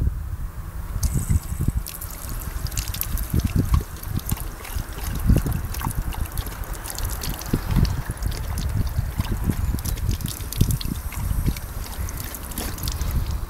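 Water trickling from a drinking-fountain spout as a Doberman laps at the stream, with quick wet splashing clicks starting about a second in.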